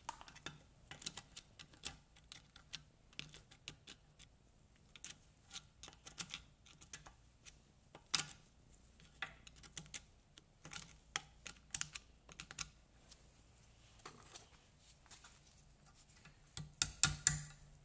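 Light, irregular metallic clicks and taps of a hand tool working pieces out of a quad's rear hub, with a quick run of louder clicks near the end.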